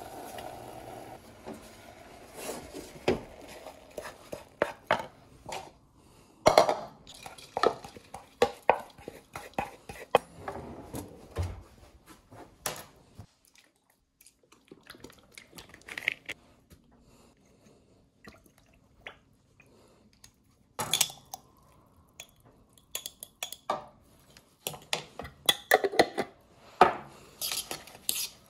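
Kitchen clatter of cookware and utensils: a metal pot lid handled at the start, then scattered knocks and clicks, and near the end a fork tapping and scraping in a plastic mixing bowl. There is a quieter stretch in the middle.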